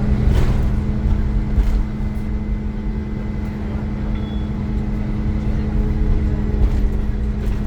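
Iveco Crossway LE 12 bus's Cursor 9 diesel engine running at a steady speed: a deep rumble with a steady droning hum and a few faint clicks.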